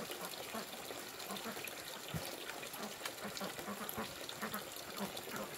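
A flock of ducks quacking in a steady run of short calls, two or three a second. A single dull knock about two seconds in.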